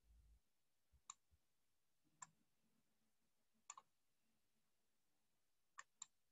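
Faint, sharp computer mouse clicks against near silence: single clicks about one and two seconds in, then a quick pair of clicks, and another quick pair near the end.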